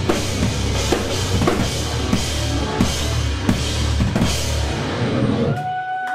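Live rock band playing at full volume: pounding drum kit with kick, snare and cymbals over distorted electric guitar and bass. About five and a half seconds in the heavy low end drops out, leaving ringing tones as the song ends.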